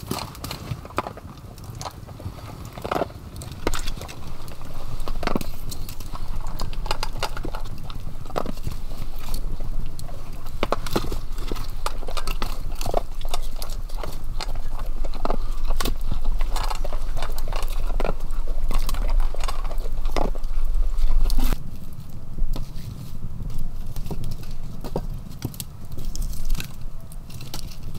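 A dog eating from a bowl, with irregular crunches and clicks, over a wood fire crackling in a stone fireplace. A steady low rumble underneath stops abruptly about three-quarters of the way through.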